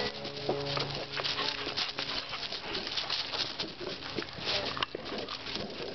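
A black Labrador's paws scrambling and scuffing on loose ground cover, an irregular crunching patter of many small clicks.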